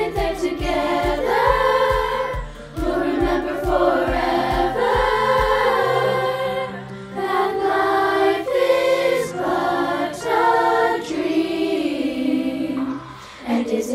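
Children's and youth choir singing sustained harmonies over an accompaniment track. A steady low beat underpins the singing, then drops out about six seconds in.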